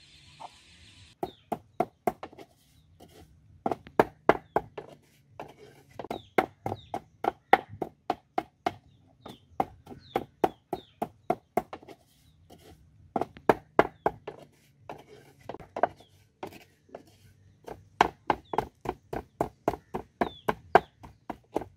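Pestle pounding garlic cloves with salt in a wooden mortar: rapid sharp knocks, about four or five a second, in runs of a few seconds with short pauses. It starts about a second in.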